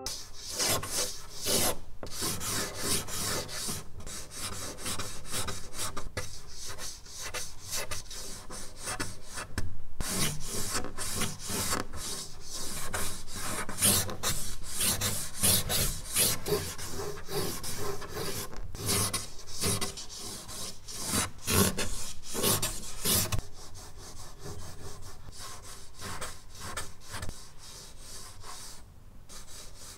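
A charcoal stick scratching and rubbing across drawing paper in quick, sweeping strokes, one after another, as a portrait is roughed in. The strokes grow softer in the last few seconds.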